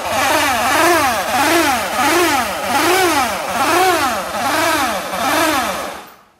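Suzuki Address V125G scooter's single-cylinder four-stroke engine being revved in quick repeated blips, its pitch rising and falling about twice a second, then cutting off about six seconds in. It is making the abnormal engine noise that the uploader takes for a blown engine.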